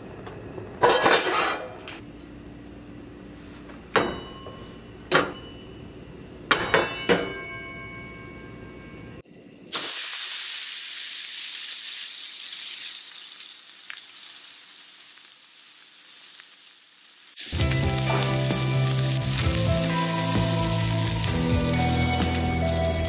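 A few knocks and clinks of a carbon steel skillet on a gas stove grate, with short metallic ringing. About ten seconds in, a steak laid into the hot pan starts sizzling loudly, and the sizzle slowly fades. Background music comes in later, over the sizzle.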